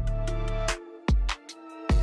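Background music with a steady beat: drum hits over a sustained bass line and held tones.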